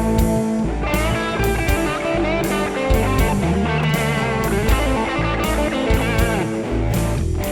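Instrumental break of a rock song: electric guitar playing over bass and a drum kit, without vocals.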